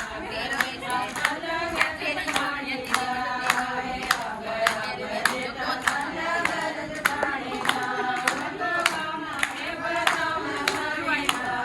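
A group singing a Haryanvi devotional bhajan together, keeping time with steady hand claps a little under two a second.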